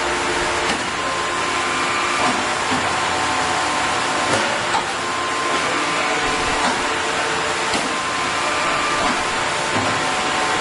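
Steady running noise of a heavy metal lathe at work, with several steady tones over a constant hiss and scattered light clicks.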